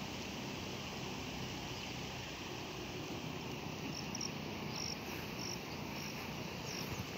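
Steady rushing noise of floodwater across flooded paddy fields. From about halfway through, a small insect, most like a cricket, gives a short high chirp about twice a second.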